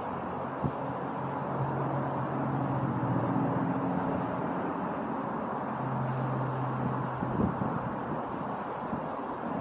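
Steady rain hiss with a passing vehicle's low engine hum that comes in about two seconds in and fades out near the end.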